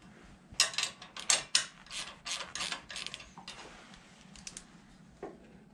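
Hand ratchet wrench clicking in a quick run of strokes, about ten in the first three seconds, then a few fainter clicks, as a lock nut is snugged onto the bolt holding the cab's rear post.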